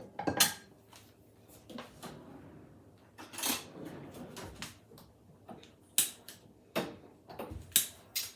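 Kitchen handling sounds: scattered knocks and clinks of pots, utensils and other cookware being moved and set down, with several sharper knocks near the end.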